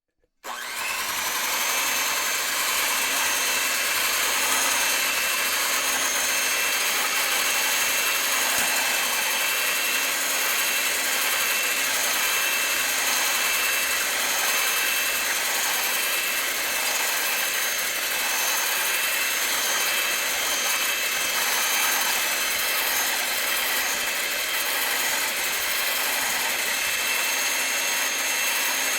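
Electric handheld mixer switched on about half a second in, then running at one steady speed with a constant high whine.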